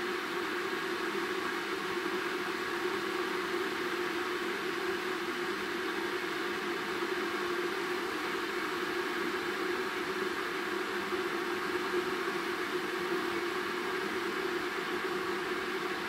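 Philips stainless-steel electric kettle heating water, making a steady hiss that does not change.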